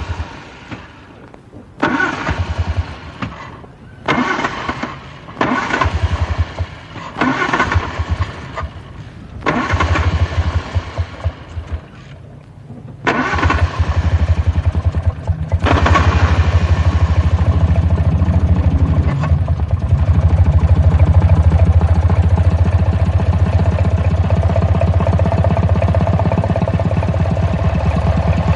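1940s car engine being cranked by its starter in several short tries that don't catch. About 13 seconds in it fires and then runs steadily.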